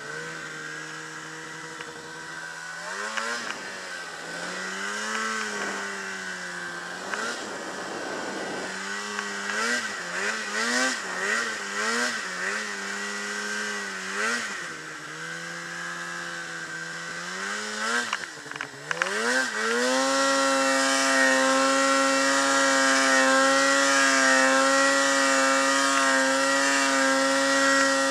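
Two-stroke mountain snowmobile engine heard from the rider's seat while riding in deep powder. The revs swing up and down with the throttle, then climb about two-thirds of the way through and hold high and steady, louder, as the sled is pinned through the snow.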